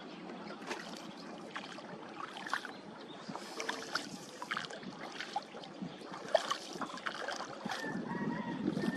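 Water lapping and trickling against the side of a wooden country boat, with small irregular splashes and drips and a sharper splash about six seconds in.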